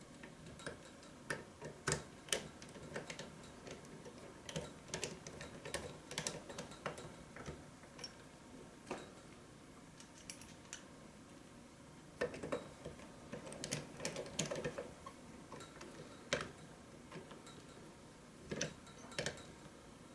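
Irregular small clicks and taps from a screwdriver driving small screws into the metal jaws of a PanaVise 350 vise, mixed with the knock of the metal jaw parts being handled.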